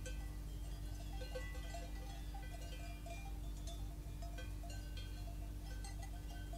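Cowbells on grazing cattle clanking irregularly, many small overlapping bell tones, over a steady low hum.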